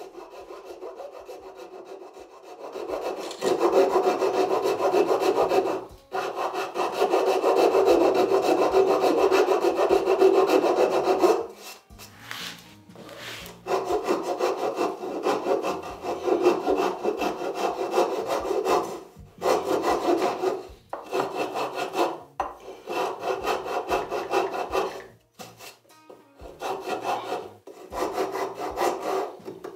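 Hand rasp rasping across the wood of a glued-up corbel, working out unevenness between its sections. It starts about three seconds in as one long continuous run of strokes, then goes on from about the middle as shorter strokes with brief pauses between them.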